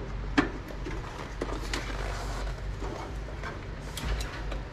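Scattered sharp clicks and knocks of hands handling hardware inside a desktop computer, over a steady low hum.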